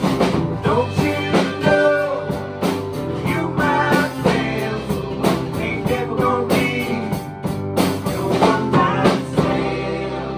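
Small rock band playing live: electric guitar lead over acoustic guitar, with drum hits throughout. Near the end the drums stop and a chord rings out, fading.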